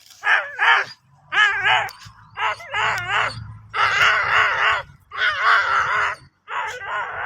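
Street dogs fighting: a rapid run of loud, high, wavering yelps and screaming cries, some short and some drawn out for about a second.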